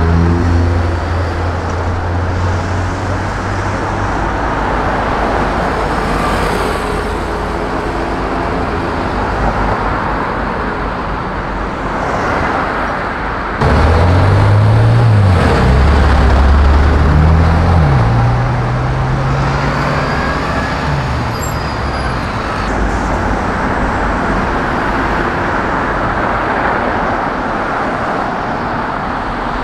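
Steady city street traffic. About halfway through a nearby engine comes in loud, climbs in pitch, drops back and climbs again as the vehicle accelerates away, then fades into the traffic.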